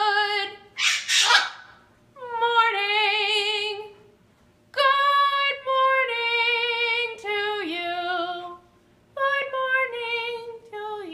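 Blue-and-gold macaw vocalizing: several long, wavering, pitched calls with short gaps between them, and one harsh squawk about a second in.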